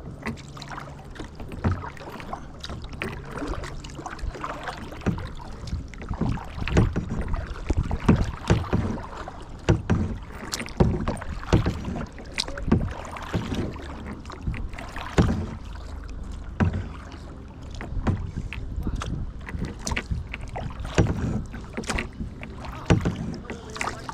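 Kayak paddle strokes, close to the microphone: the blades dip and splash into the water in an uneven rhythm, about one stroke a second, over a steady wash of water.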